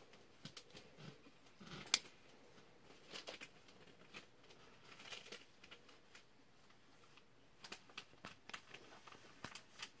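A CRKT Lake 111 lockback folding knife being handled. One sharp metallic snap about two seconds in, as the blade swings open and the lockback engages, with scattered small clicks and rubbing from fingers on the knife before and after.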